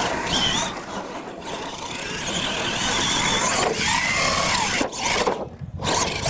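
Radio-controlled monster truck driven hard on a dirt course: its motor whines, rising and falling in pitch with the throttle, over the noise of tyres on dirt.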